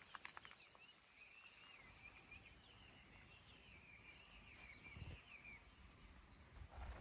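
Near silence, with a few light clicks at the start and then a faint, high, wavering warble for about five seconds.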